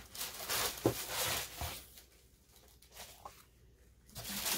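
Sheets of scrapbook paper rustling and sliding as they are pulled out of a box and laid on a table, with a light knock about a second in. It goes quiet for a couple of seconds, then rustles again near the end.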